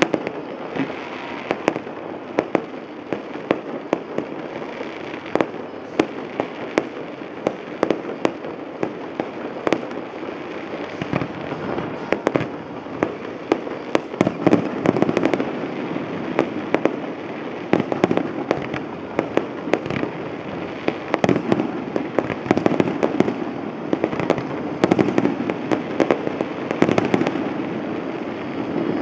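Distant fireworks display: a continual run of bangs and crackling bursts over a steady low background noise, the bangs coming thicker and louder from about halfway through.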